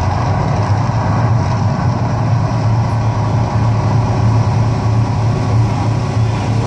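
The Mirage volcano attraction erupting: a steady, loud low rumble with an even rushing noise over it, easing slightly near the end.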